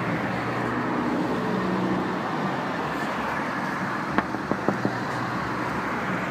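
Steady road traffic noise from cars passing on a busy street, with a few light knocks about two-thirds of the way through.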